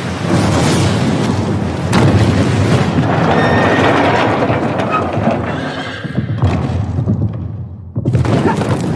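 Horses galloping, a dense run of hoofbeats with whinnying; the sound thins and dips briefly about eight seconds in, then separate hoofbeats and short neighs follow.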